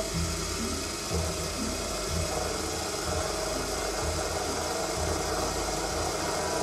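Proxxon PD 250/e mini lathe running steadily while a drill in the tailstock chuck bores into the end of a spinning chromoly steel part, with a low throb about once a second.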